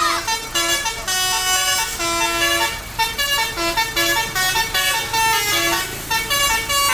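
Bus telolet horn (Basuri multi-tone horn) playing a melody, its notes switching several times a second.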